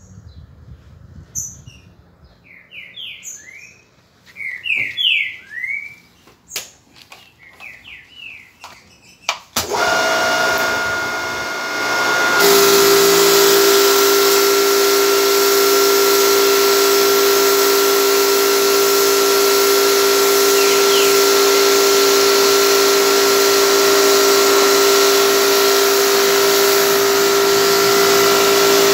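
Small birds chirping, with a few light knocks. About ten seconds in, a pressure washer starts and grows louder a couple of seconds later, then runs steadily: a motor hum under the hiss of the water jet as it strips the skin off a scabbardfish.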